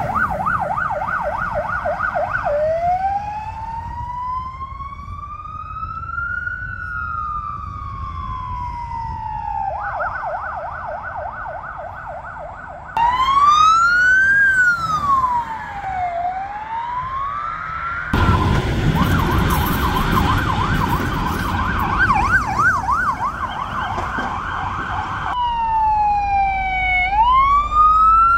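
Emergency vehicle sirens, fire engines among them, sounding on an emergency run. Several sirens take turns, switching between a fast warbling yelp and a slow rising-and-falling wail. A heavy engine and road noise are loud for several seconds in the middle.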